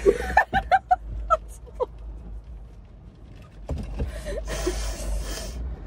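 Two women laughing together: a quick run of short giggles, then quieter, breathy, wheezing laughter from about halfway through.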